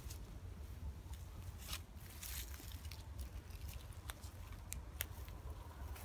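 Footsteps crunching over gravel, dry grass and snow: a few scattered crunches and clicks over a low rumble on the microphone.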